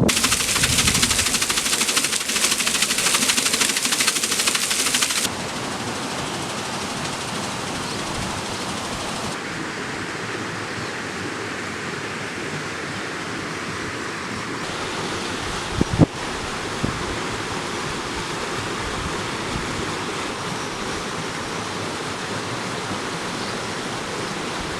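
Steady rushing noise that changes abruptly in tone and level about five, nine and fifteen seconds in, with one sharp knock about sixteen seconds in.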